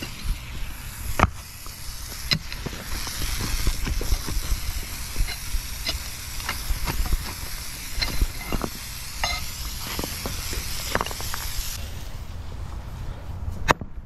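Broken concrete rubble being cleared from a sawn strip in a concrete driveway: irregular sharp clinks and knocks of concrete chunks and a steel scraper blade against concrete. Under them is a steady hiss that cuts off suddenly about twelve seconds in.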